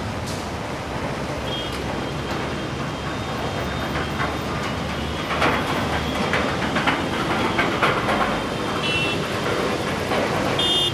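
City road traffic on wet asphalt: engines running and tyres hissing through water as cars and buses pass, swelling in the middle. Short high horn toots come in a couple of times, most clearly near the end.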